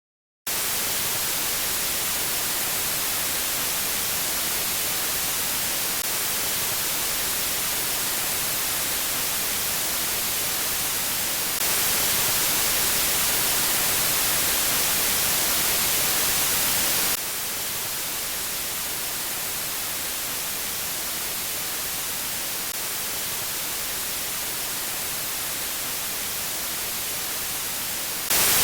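Steady hiss of calibration test noise for setting speaker levels. It starts about half a second in, is louder from about 12 to 17 seconds, then quieter, and steps up again near the end as it moves between speaker channels.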